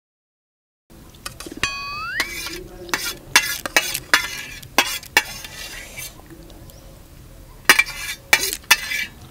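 Metal spoon scraping and clinking against a steel thali plate, many quick strokes starting about a second in, with a brief rising squeal about two seconds in.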